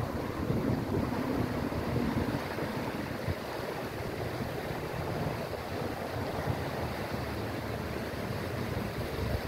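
Shallow river rushing steadily over rocks and riffles, with wind buffeting the microphone as a low, uneven rumble.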